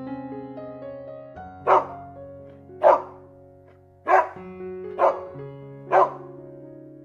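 A dog barking five short, sharp barks, about one a second, over background music with held notes.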